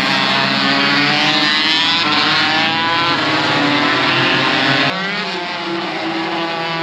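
Aprilia RS 125 two-stroke single-cylinder racing engine running, its pitch wavering up and down with the throttle. About five seconds in the sound cuts abruptly to another engine running steadily.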